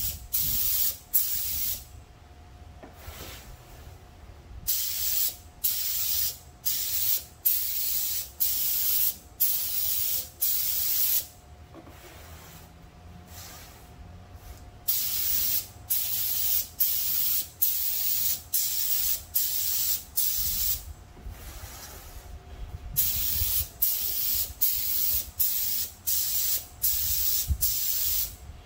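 Gravity-feed spray gun spraying urethane automotive base coat in short hissing bursts, about one a second, one for each pass of the trigger. The bursts come in four runs broken by pauses of a few seconds.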